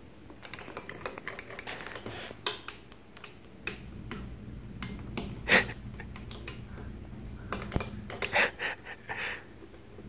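Irregular clicking and clacking of push buttons and switches on a homemade busy box as a toddler presses them, with a few louder knocks against the wooden panel.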